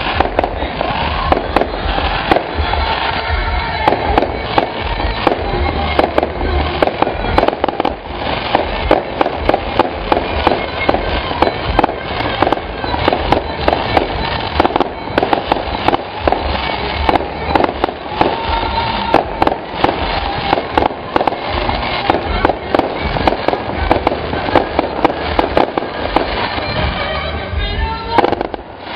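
Fireworks display: a dense, continuous barrage of aerial shell bursts, many sharp bangs and crackles a second, easing briefly near the end.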